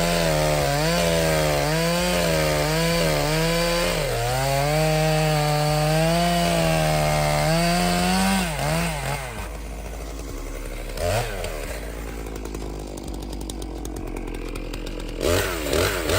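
STIHL MS 661 C-M two-stroke chainsaw running flat out through a cut, its pitch wavering with the load. About eight and a half seconds in, it comes off the throttle and runs quieter, with a short rev about two seconds later and another couple near the end.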